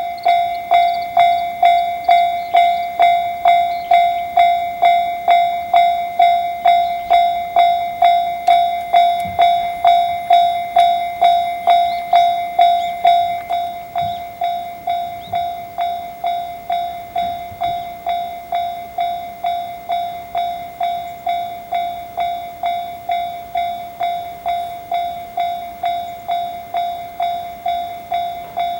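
Japanese level-crossing warning bell starting up and ringing in an even, steady rhythm of a little under two strokes a second, the signal that a train is approaching the crossing. It gets somewhat quieter about halfway through.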